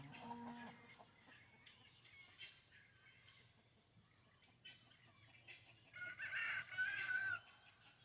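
Farmyard dawn chorus: a rooster crows loudest, about six seconds in and lasting just over a second, while small birds chirp high and thin throughout.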